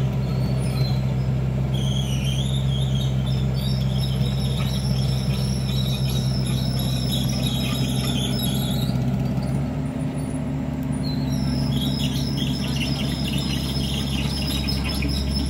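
Excavator's diesel engine running steadily as a low hum that shifts about ten seconds in. High-pitched squealing chirps sound over it in two long spells.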